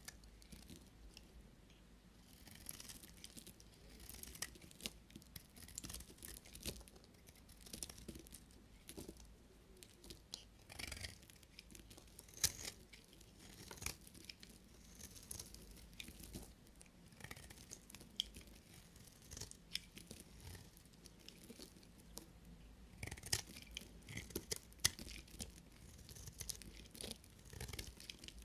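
A knife cutting through bars of soap: a run of short scraping, crackling strokes with sharp clicks as the blade cuts through.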